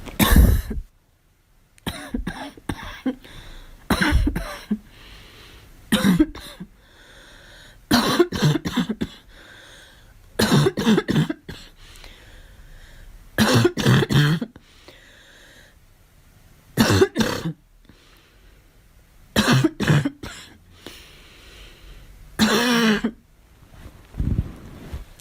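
A girl coughing over and over, in fits of two to four sharp coughs every two or three seconds, with breaths drawn in between the fits.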